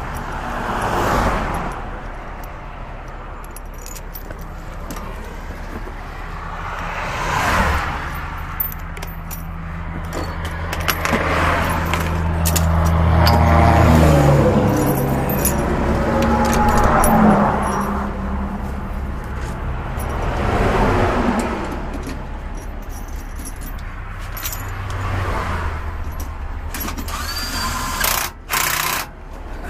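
A heavy diesel truck engine running steadily, growing louder around the middle. Traffic rushes past at highway speed every few seconds, with scattered light metal clinks.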